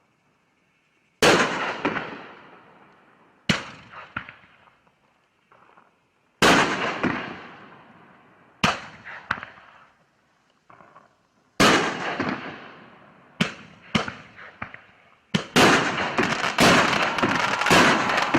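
Fireworks going off: a series of loud sharp bangs, each trailing off, spaced two to three seconds apart at first and coming in quicker succession from about fifteen seconds in.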